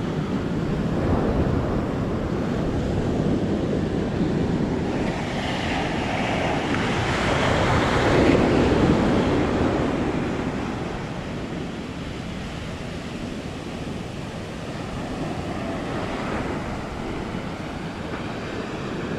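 Ocean surf breaking and washing up a beach, with wind buffeting the microphone. One wave swells to its loudest about eight seconds in, then ebbs.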